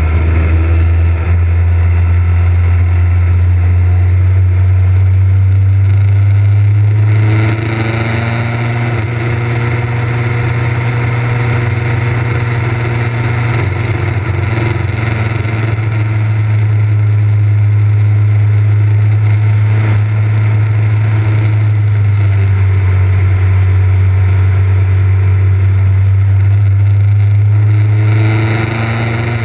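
Motorcycle engine running steadily while riding along a road. The engine note changes about seven seconds in, with the pitch rising as the bike picks up speed, and shifts again near the end.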